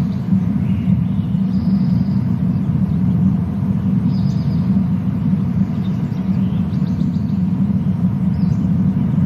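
Steady low rumble, with a nesting raptor's high trilling calls coming faintly over it several times.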